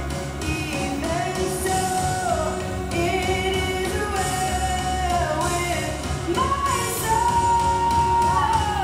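A song with a singing voice over instrumental backing; the melody climbs about two-thirds of the way through to one long held note.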